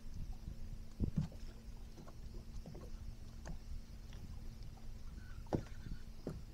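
Water lapping against the hull of a fiberglass bass boat, heard as a low rumble under a faint steady hum, with a few sharp knocks on the boat, the clearest about a second in and near the end.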